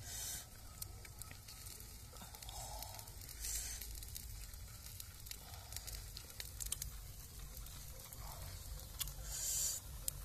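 Cooked crabs being handled and pulled apart by hand: scattered sharp clicks of shells and short crackling tears, the loudest near the end.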